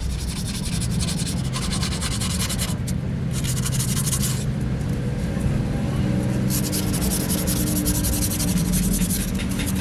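Abrasive rubbing or sanding in three long spells, over a steady low machine hum.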